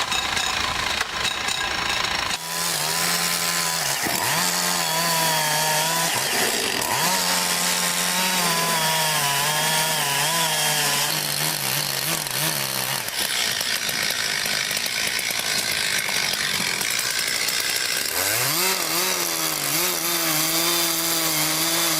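Two-stroke chainsaw cutting into wood, its engine note wavering up and down under the load of the cut. Partway through, the tone gives way to a plain rasping noise, then the engine revs back up and holds steady near the end.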